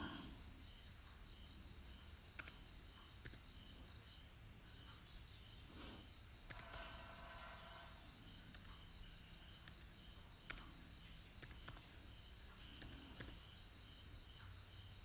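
Faint background noise: a steady high-pitched hiss with a faint chirp repeating about twice a second, and a scatter of soft clicks from computer keys being typed.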